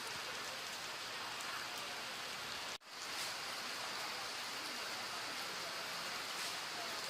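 Steady hiss of falling water, even and unbroken except for a sudden, very short dropout a little under three seconds in.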